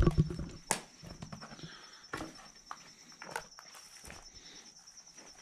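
A heavy thump, a sharp knock just after it, then scattered lighter knocks and steps while the hinged part of an old building is handled. A steady high insect drone runs underneath.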